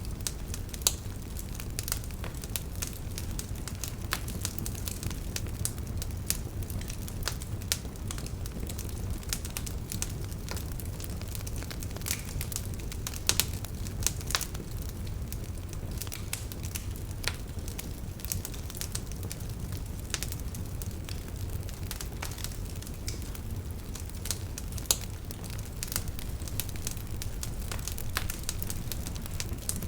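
Campfire burning: a steady low rumble of flames with frequent irregular crackles and occasional sharper pops from the burning wood.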